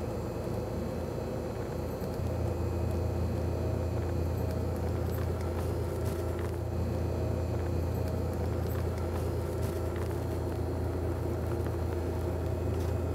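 Steady low machine hum of deli equipment (refrigerated display cases and kitchen appliances), which grows louder about two seconds in and carries a few faint clicks.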